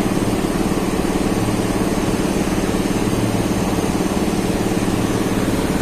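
A machine running steadily, giving a constant low drone.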